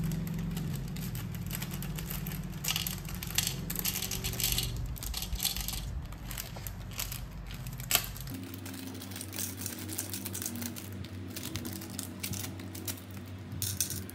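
Small plastic bags crinkling while tiny nail charms click and tap against a clear plastic compartment box as they are sorted into it, in short scattered bursts.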